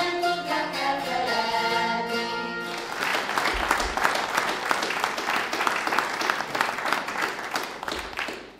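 Citera (Hungarian zither) ensemble and singing voices playing the last notes of a folk song, then an audience applauding for about five seconds, fading out near the end.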